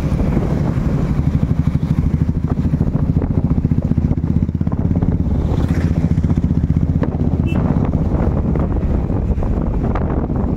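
Motorcycle engine running steadily at road speed, a low drone with a fast even pulsing.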